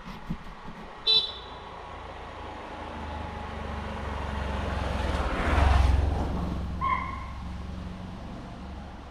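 Two short, sharp alarm calls from spotted deer (chital): a high shrill one about a second in and a lower one near seven seconds in. Between them a motor vehicle's engine rumble swells and then fades.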